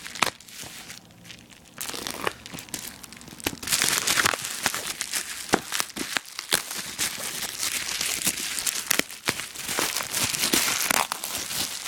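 Bubble wrap and plastic packaging crinkling and crackling as it is handled and pulled away, with many quick snaps. Quieter for the first two seconds, then steady busy handling.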